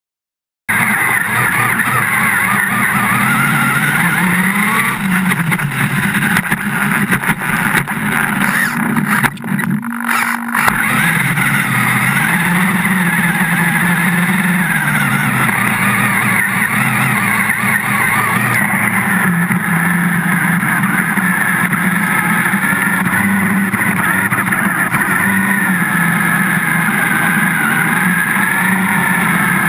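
On-board sound of a radio-controlled car's motor running hard, its pitch rising and falling with the throttle, as it drives through shallow water and over dirt and sand, throwing up spray. The sound cuts in abruptly about half a second in and dips briefly around ten seconds in.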